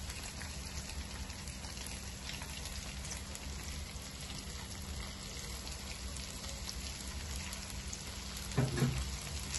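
Hot desi ghee and onion-tomato masala sizzling in a steel pot: a steady hiss with faint scattered crackles as boiled split lentils are tipped in from a bowl.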